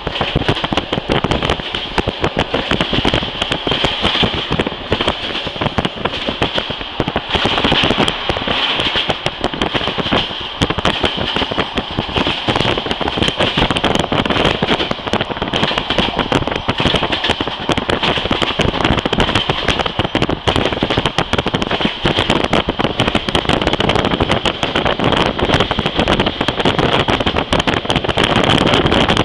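Passenger train running along the track, heard from inside a carriage: a dense, crackling rattle of wheels on rails with a steady high hiss.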